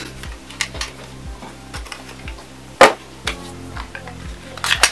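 Background music with a steady beat, with light clatter of small items being handled and one sharp knock about three seconds in, the loudest sound.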